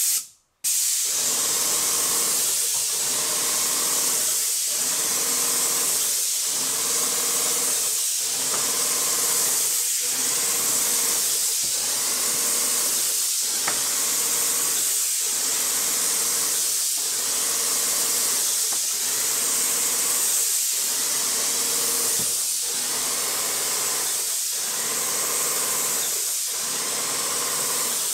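Airless paint sprayer spraying paint onto a wall: a loud, steady hiss from the spray tip with a faint hum under it, dipping briefly about every two seconds. It starts suddenly about half a second in.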